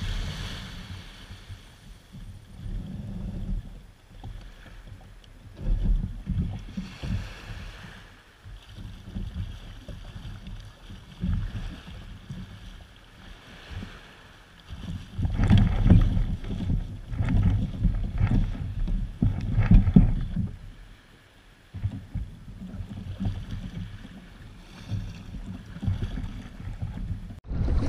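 Water sloshing and splashing around a sit-on-top kayak as it is pushed out through small breaking surf and then paddled, with uneven low rumbling from wind on the microphone. The splashing comes and goes in stretches.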